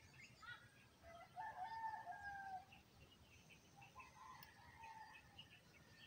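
A rooster crowing faintly, one long crow starting about a second in, followed by a weaker call around four seconds. Small birds chirp faintly in the background.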